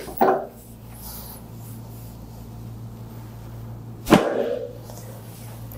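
A single sharp crack about four seconds in as a chiropractor thrusts down with both hands on the lower back of a patient lying face down: a lumbar spinal adjustment.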